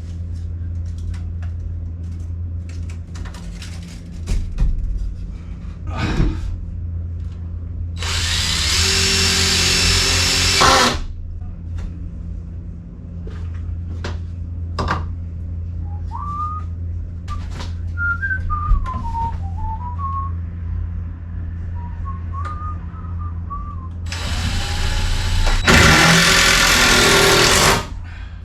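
A power tool runs in two bursts of about three seconds each, one in the first half and one near the end, over a steady low hum.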